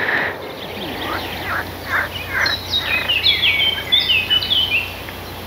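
Songbird singing: a few quick downward-sweeping notes, then a run of short high whistled notes stepping down in pitch, over a steady low hum.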